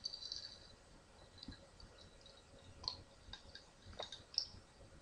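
Faint, scattered short clicks, a few of them sharper near three and four seconds in.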